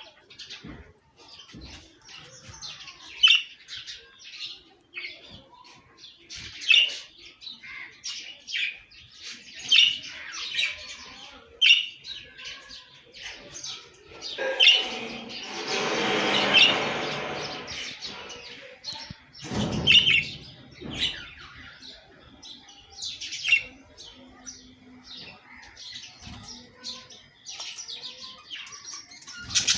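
Budgerigars chirping repeatedly in short, high calls, with a louder noisy stretch of a few seconds about halfway through.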